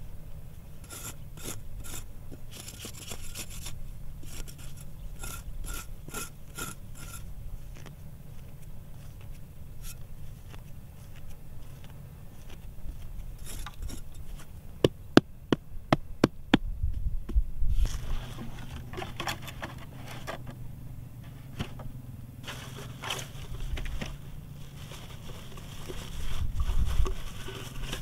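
A large knife blade scraping and digging into dry, hard soil inside a narrow hole, loosening dirt in repeated strokes. A run of sharp knocks comes about halfway through, then more rough scraping.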